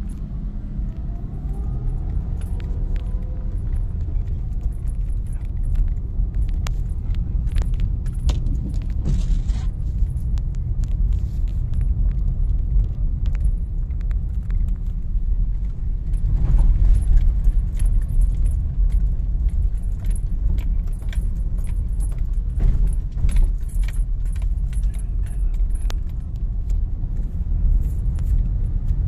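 Car driving in heavy rain on a potholed road: a steady low rumble of engine and tyres, with many sharp ticks and rattles throughout. A louder surge comes just past halfway.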